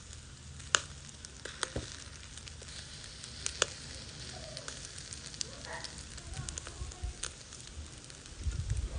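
Chicken wings sizzling over burning charcoal in a shichirin clay grill, with a steady hiss and a handful of sharp crackles and pops from the coals.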